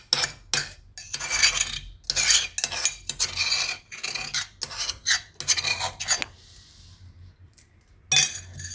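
A metal spoon scraping pounded garlic-and-red-chilli paste out of a metal mortar, in a run of short scraping strokes with clinks of metal on metal. The strokes stop about six seconds in, and one more comes near the end.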